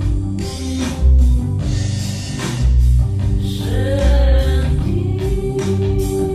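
Background song: a singer holding long, wavering notes over bass and drums with a steady beat.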